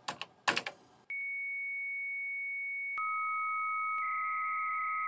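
Two key clicks on a computer keyboard, then 300-baud modem tones: a steady high answer tone, joined after about two seconds by a lower steady tone, then about a second later the high tone turns into a busier warbling data signal.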